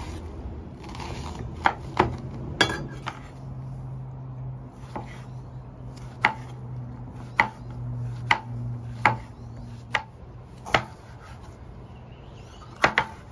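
Chef's knife chopping vegetables (red onion, zucchini, red bell pepper) on a bamboo cutting board: about a dozen separate knocks of the blade striking the board, unevenly spaced, with a quick double knock near the end.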